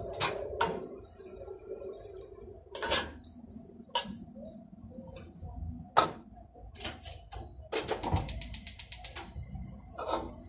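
A metal spatula clinking and scraping against a wok while noodles are stir-fried, with sharp knocks every second or so. About eight seconds in comes a quick run of about a dozen even taps, like the spatula being rapped on the wok.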